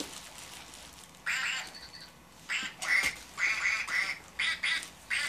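Plush toy duck making electronic quacks: a quick run of about eight short quacks that begins about a second in.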